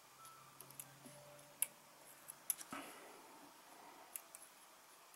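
Scattered small clicks and taps of a metal wicking pick against the gold-plated deck and coil of a Desire Mad Dog RDA as cotton wick is tucked in, the sharpest a little past one and a half seconds and about two and a half seconds in.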